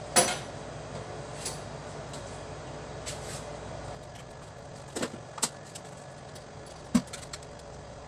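Handling noise from work on pump fittings and controls: a loud sharp knock right at the start, then a few lighter clicks and knocks about five to seven seconds in, over a steady low hum.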